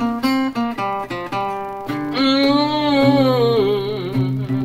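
Ladder-braced Gibson LG-0 acoustic guitar fingerpicking a country-blues lick of separate plucked notes over a steady bass. About two seconds in, a long wordless sung note enters over the guitar, wavering and slowly falling in pitch before fading near the end.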